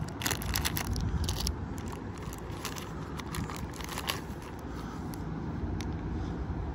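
Clear plastic packaging bags crinkling and crackling as they are handled, most densely in the first second and a half, then in scattered crackles, over a steady low background rumble.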